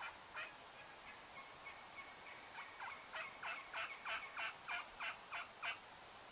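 A run of turkey yelps, about three a second. The calls are fairly faint at first, grow louder and more regular in the second half, then stop near the end.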